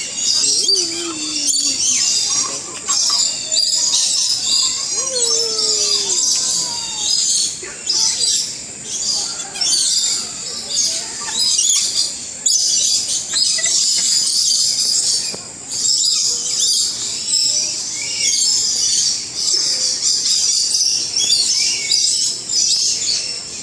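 A flock of lories and lorikeets calling all at once, a dense, continuous high-pitched chatter.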